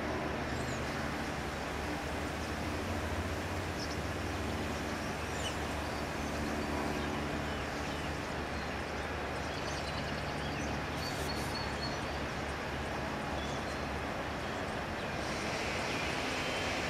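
Steady low engine rumble of motor traffic, with a few faint bird chirps above it.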